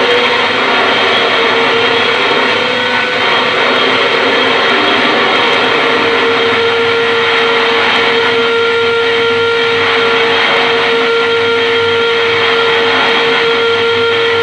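Harsh noise from a theremin run through a chain of effects pedals: a loud, dense, unbroken mass of distorted noise. About six seconds in, a steady droning tone rises out of it and holds.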